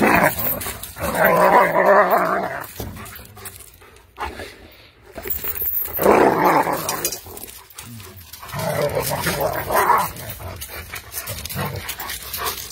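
German Shepherd puppies vocalizing in several drawn-out calls of a second or two each, with short gaps between them.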